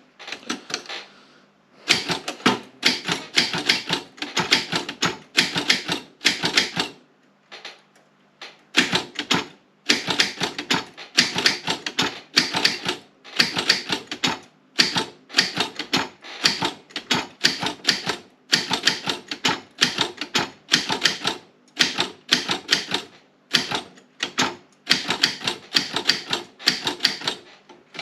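Optima M16 manual typewriter being typed on: its typebars strike the platen in fast runs of sharp clicks, broken by a couple of short pauses.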